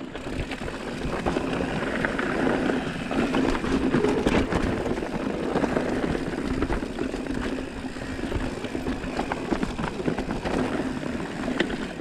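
Mountain bike rolling along a rocky dirt trail: a steady rush of tyre and wind noise, with many small rattles and knocks from the bike over rocks and roots.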